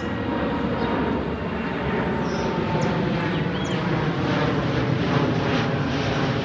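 Twin-engine jet airliner climbing overhead just after takeoff: a steady rumble of jet engines that grows slightly louder as it passes.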